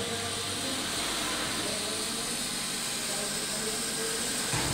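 Steady hum and hiss of machinery running in a milk chilling plant, the refrigeration and cooling equipment of the bulk milk chiller. A small low thump comes near the end.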